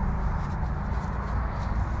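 A steady, low engine hum with an even pitch, typical of a diesel engine idling.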